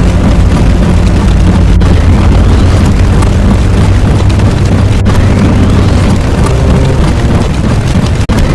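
Loud, dense rumbling sound effect with an explosion-like character and a rising whistle that comes back about every three seconds, with short cut-outs where the loop repeats.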